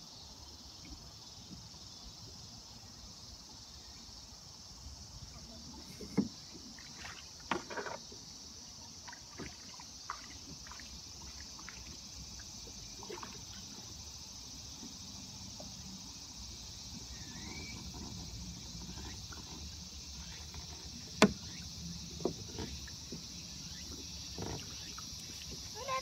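Steady high insect chorus from the surrounding woods, with a few sharp knocks and taps from the small fishing boat and tackle scattered through it.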